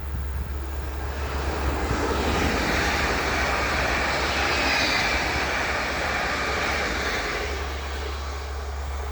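A train passing on the line: rolling wheel and rail noise swells from about a second in, peaks around halfway, and eases off, over a steady low rumble.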